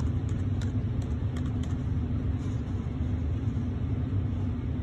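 Steady low rumble of room machinery, with a faint steady hum over it and a few faint keyboard clicks as text is typed.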